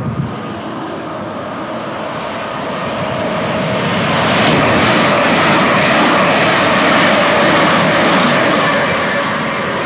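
A train passing along the line: a steady rushing noise that builds over the first few seconds, is loudest in the middle and eases a little near the end.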